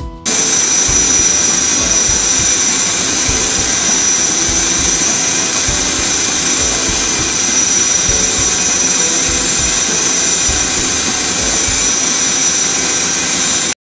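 High-speed CNC drill spindle running and drilling small dot holes into a plastic bangle: a loud, steady high-pitched whine over a dense cutting hiss. It starts abruptly and cuts off suddenly near the end.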